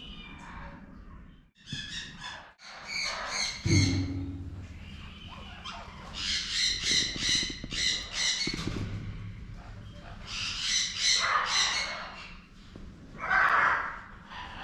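Birds calling: several bursts of fast, repeated harsh chattering notes.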